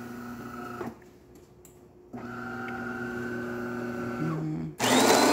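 DeLonghi Magnifica super-automatic espresso machine starting a brew cycle. An internal motor whirs steadily, stops for about a second, then whirs again. Near the end the bean grinder starts up, much louder and grittier.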